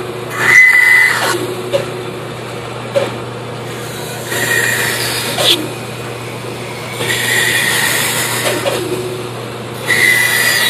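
Band saw running with a steady motor hum, its blade cutting through a wooden block in four separate passes. Each pass adds a louder whining rasp that starts and stops as the wood is fed into the blade and backed out.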